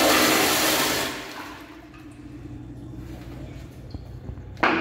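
Flushometer toilet flushing loudly: a strong rush of water that fades over a couple of seconds into quieter running water. A second loud rush starts abruptly near the end.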